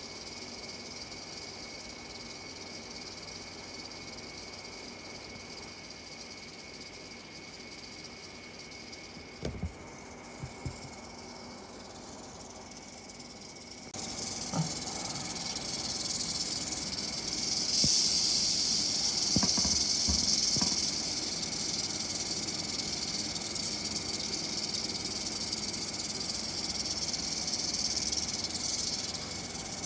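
Eastern diamondback rattlesnake rattling its tail, a defensive warning: a steady high buzz that starts about halfway through and is loudest over the last ten seconds. Before it, a faint background with two soft knocks.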